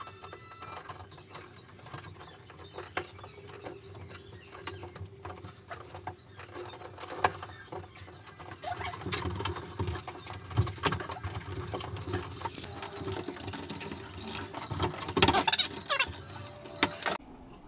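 Hands working wires at an open wall, then NM electrical cable being pulled through the wall cavity and out of a switch box: irregular scraping, rustling and clicking of the cable and its sheath, busier in the second half and loudest a couple of seconds before the end.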